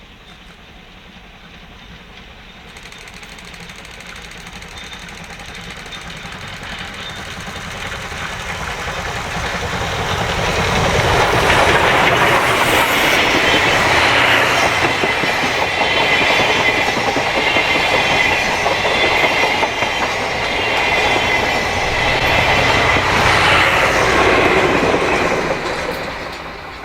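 A JR East class C57 steam locomotive working hard as it approaches and passes with its train, exhaust and running gear growing steadily louder. It is loudest for over ten seconds as the engine and carriages go by, with wheels clattering over the rails and a steady high tone, then fades near the end.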